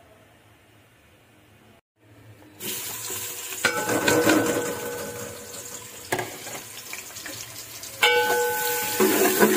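Sliced onions hitting hot oil in a metal cooking pot and frying with a loud sizzle that starts about two and a half seconds in. A metal spoon clanks against the pot as the onions are stirred, and the pot rings twice.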